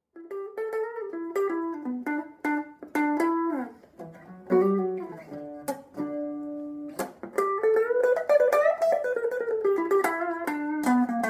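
Electric guitar played through an Orange Micro Crush CR3 mini amplifier: quick phrases of single plucked notes, a note held for over a second near the middle, then a long glide up in pitch and back down before more quick notes.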